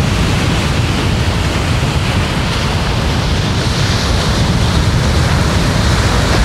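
Steady rushing of ocean waves and wind, a sea ambience laid over the rendered ocean, growing a little louder toward the end.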